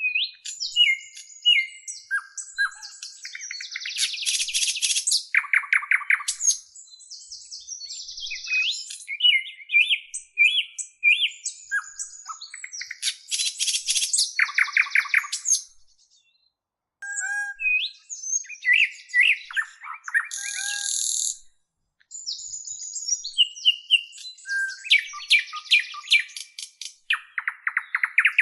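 A songbird singing a long, varied song of chirps, whistled notes and rapid trills, breaking off twice for about a second.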